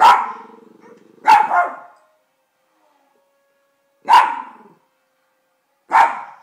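Small dog barking at a plush toy dog: four sharp barks spaced out over several seconds, the first trailing into a brief low growl.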